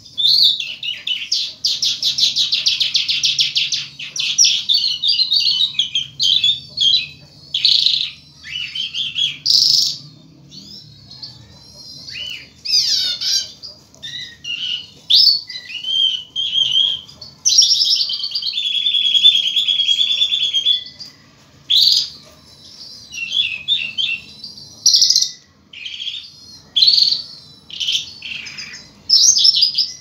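Caged lark singing a long, varied song of rapid trills, chirps and short whistled phrases with brief pauses. A held trilled note comes about two-thirds of the way through.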